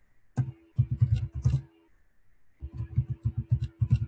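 Typing on a computer keyboard: two quick runs of keystrokes, several a second, with a pause of about a second between them.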